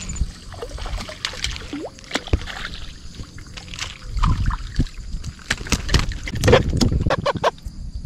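A hooked catfish being landed: water sloshing and splashing, then the fish flapping against a small plastic boat's hull, with a run of sharp knocks and heavy thumps, loudest between about four and seven seconds in.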